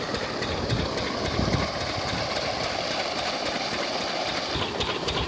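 Diesel irrigation pump engine running steadily, with water gushing out of a 4-inch pipe outlet onto the ground.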